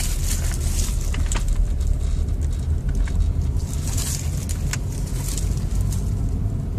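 A 2008 Audi A6 being driven: a steady low rumble of engine and road noise with scattered light clicks. The car is running smoothly, with no misfire or vibration, after the cylinder 3 ignition coil was fixed.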